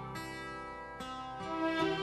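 Background music: plucked strings over sustained string tones, with notes changing about once a second.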